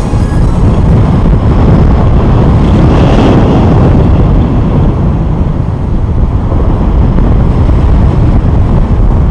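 Loud, steady wind noise from airflow buffeting the microphone of a camera carried by a paraglider pilot in flight.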